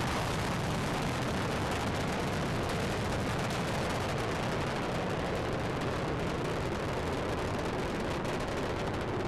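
Space Shuttle Discovery's solid rocket boosters and main engines firing in ascent: a steady, dense rumble full of rapid crackle, unchanging throughout.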